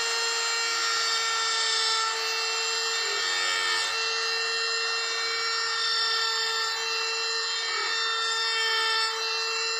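Electric power tool running at a steady speed on wood, a constant high whine with small dips in level as it bites.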